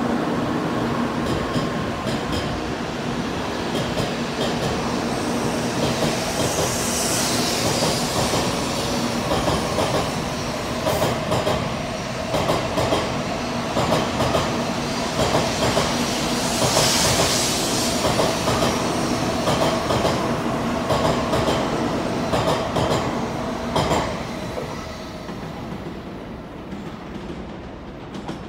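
N700-series Shinkansen train accelerating out of the station past the platform: a steady running rumble and hum, with wheels clicking over rail joints more and more often as it speeds up, and two swells of hiss. It fades away near the end.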